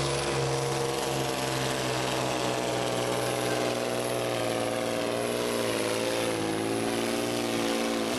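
Diesel engine of a Volvo FH pulling truck running flat out under full load as it drags the weight sled, a loud steady drone with a faint high whistle over it. Its pitch sags slightly over the last few seconds, then climbs briefly at the very end.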